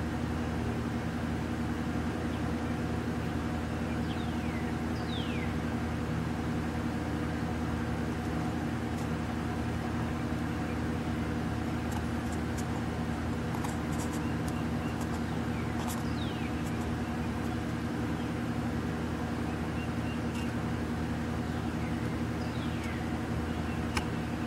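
A motor runs with a steady low hum. Over it come a few short, falling whistled bird calls.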